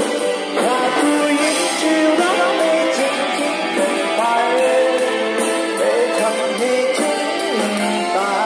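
A man singing a song into a handheld WS-1807 Bluetooth karaoke microphone over a backing track. The voice and music come out of the microphone's small built-in 3 W speaker and sound thin, with no bass.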